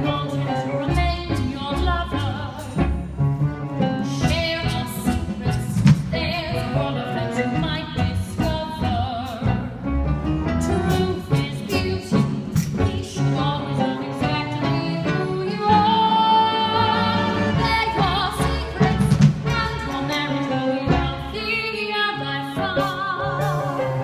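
Music: a singing voice with strong vibrato over orchestral accompaniment.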